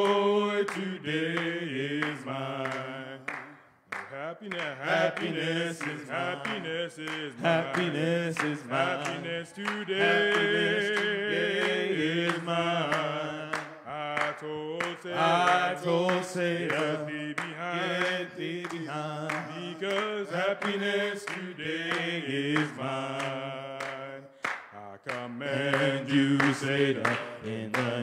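Small group of men's voices singing a gospel praise song together, with hand claps keeping time. The singing breaks off briefly about four seconds in.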